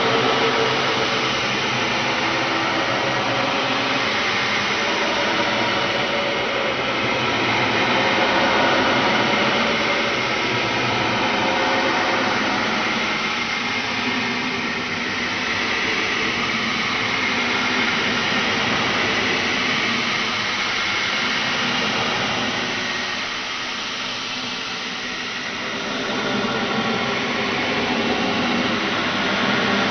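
Horror sound effect: a dense, noisy, unpitched drone with faint steady tones inside it. It swells and fades slowly, dipping twice without stopping.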